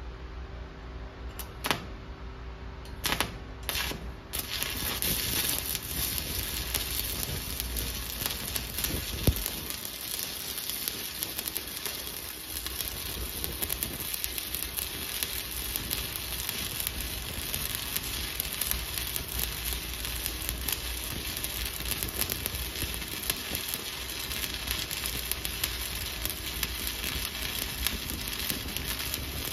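Stick (SMAW) welding with a 7018 rod, run vertical-up as a stringer bead on a 1-inch plate. A few short sharp cracks come in the first few seconds as the arc is struck. From about four seconds in, the arc runs steadily with a fine, even crackle.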